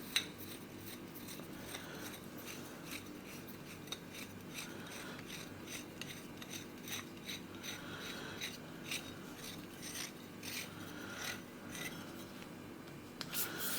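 Metal pull rod being screwed by hand into its joining connector: faint, irregular scraping ticks of metal threads turning.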